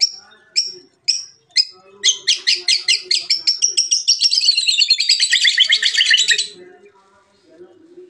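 White-rumped shama (murai batu) in full song: a few sharp, high notes about two a second, then from about two seconds in a fast run of rapidly repeated notes that rises and then falls in pitch and stops abruptly.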